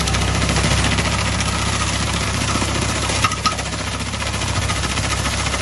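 Swaraj 744 tractor's diesel engine running under load in low first gear, driving a PTO-powered Chopking banana shredder whose rotor chops through banana stems with a steady, rapid clatter. Two sharp knocks a little after three seconds in.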